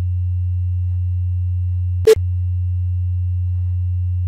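Steady 90 Hz sine test tone, a pure low hum. About two seconds in there is one sharp click, where the tone switches from the left speaker to the right.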